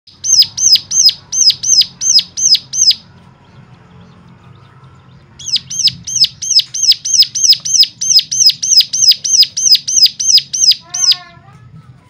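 Caged cigun songbird calling a rapid series of sharp, high, down-slurred notes, about four a second, in two runs: a short one, a pause of about two seconds, then a longer run.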